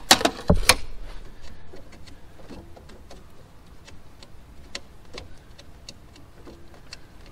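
Hands handling small hose fittings and parts in an engine bay: a quick run of loud clicks and knocks in the first second, then scattered light ticks and taps.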